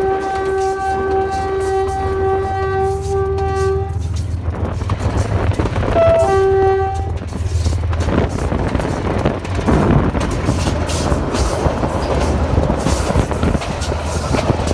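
RGE-20 diesel locomotive sounding its horn in a long steady blast that stops about four seconds in, followed by a second short blast a couple of seconds later. Under it the engine drones steadily, and after the horn the wheels rumble and click over the rail joints as the train runs on.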